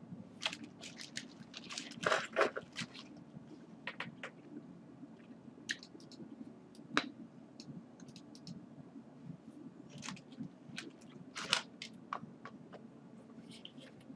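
Scattered computer mouse clicks and small handling crackles at a desk, over a low steady computer hum, with a denser cluster of clicks about two seconds in.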